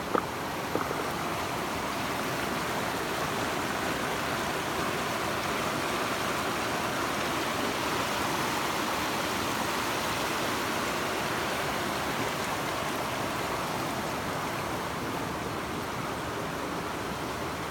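River water rushing steadily, with two short clicks in the first second.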